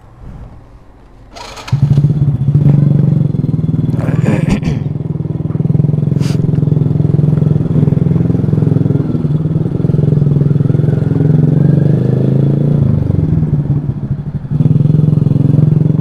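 Motor scooter with an aftermarket SC Project open 'brong' exhaust, its engine coming in suddenly about two seconds in and then running with a loud, steady, deep exhaust note while riding slowly. The note sags briefly near the end and picks up again.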